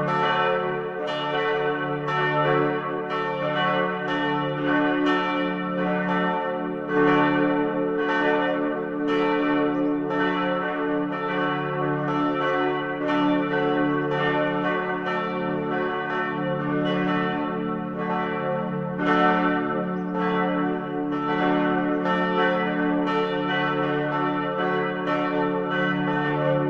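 Church bells pealing together, with a fresh strike about once a second, each ringing on and overlapping the next so the tones never die away.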